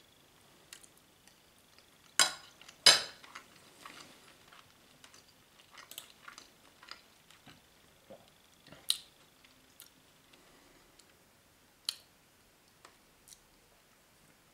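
A person chewing food with the mouth closed, giving many small scattered mouth clicks, with two sharp cutlery clinks about two and three seconds in and a few more single clinks later.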